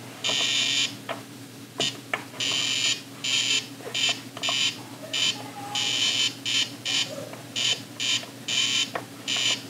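Etch A Sketch Animator's electronic buzzer sounding in irregular stop-start bursts, from short blips to bursts of most of a second, as its drawing knobs are turned to move the cursor.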